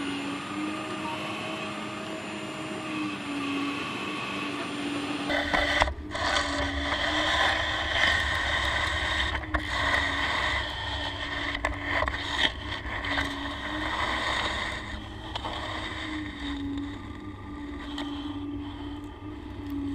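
The hydraulic pump of a 1:8 scale RC Caterpillar 390D excavator whines steadily, its pitch dipping briefly now and then as the hydraulics take load. About five seconds in, the sound turns close and gritty as the bucket scrapes and crunches through the dirt, with several sharp knocks.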